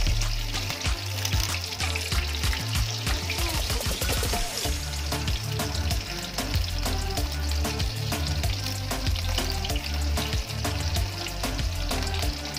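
Eggplant halves sizzling as they fry in hot oil in a wok, with a metal turner scraping and tapping the pan as they are turned. Background music with a heavy bass line plays over it.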